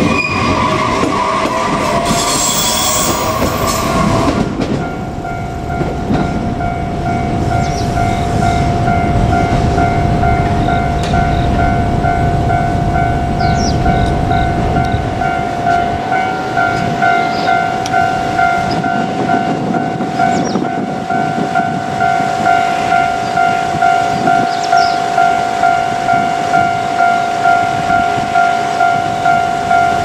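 JR Kyushu 817-series electric train passing close by, its wheels clattering and rumbling over the rails and fading out about halfway through. Over it, from a few seconds in, a level crossing's electronic warning bell rings on in a steady repeating tone.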